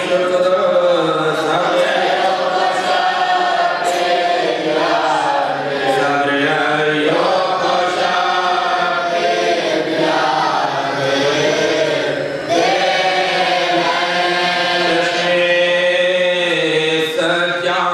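A group of men chanting a nauha, a Shia lament, together without instruments: a lead reciter sings into a microphone while the others join in unison, on long drawn-out, gliding notes.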